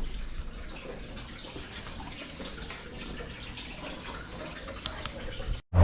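Faint water sounds, light dripping and trickling over a steady low hiss, with scattered small ticks; it cuts off abruptly near the end.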